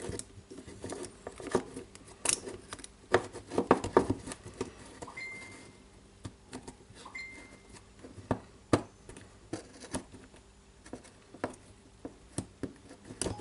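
Irregular clicks and light knocks of the impact driver's plastic housing and motor parts being handled and fitted together.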